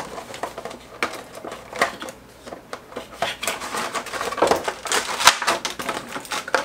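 A cardboard Funko Pop box being opened by hand and the vinyl figure worked out of its plastic insert: a run of clicks, taps and rustling, busiest from about four seconds in.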